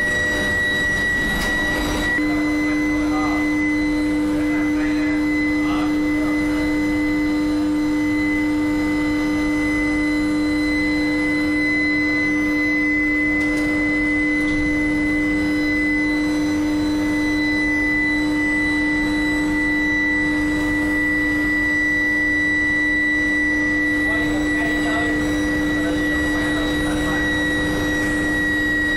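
Billet induction heating furnace running: a steady electrical hum with a high, constant whine over it, the tones shifting slightly about two seconds in.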